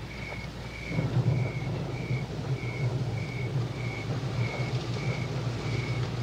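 Night-time crickets chirping in an even, steady pulse, about one and a half short high chirps a second, over a low steady hum that grows a little louder about a second in.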